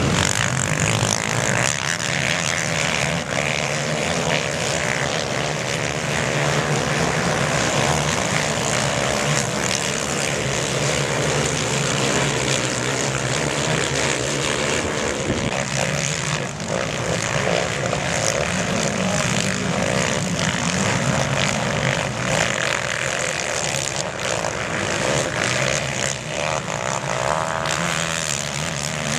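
Overlapping engines of several racing quad ATVs running hard, forming a continuous engine drone.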